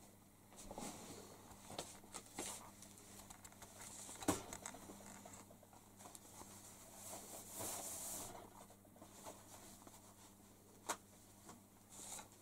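Faint rustling and scraping with scattered light clicks, a sharp knock about four seconds in and another near eleven seconds, over a faint steady low hum.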